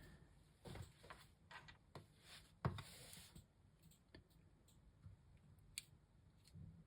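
Faint clicks and short scrapes of hard plastic parts as a Playmobil figurine is handled and pulled apart. There is a busy run of clicks in the first half, the loudest about two and a half seconds in, then a few scattered ticks.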